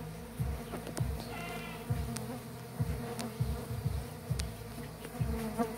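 A swarm of stingless bees buzzing steadily around their opened wooden hive box, mixed with repeated low bumps from the camera being handled and a few light clicks.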